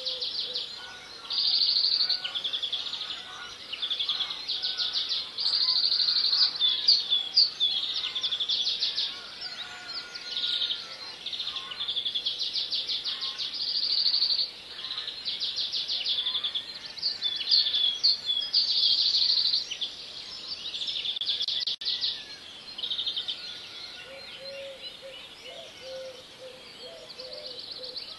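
Small birds singing: high, rapid trilled phrases about a second long, one after another with short pauses.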